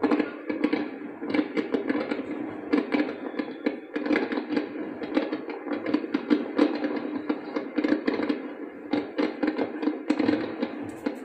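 Fireworks crackling and popping in a dense, rapid stream, heard through a television's speaker.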